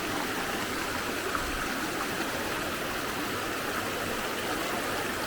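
Steady rush of a rocky river's water flowing over and around stones.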